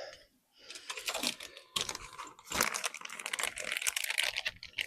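Quick, irregular clicking and rattling of hand tools and bolts, sparse at first and coming thick and fast over the last couple of seconds.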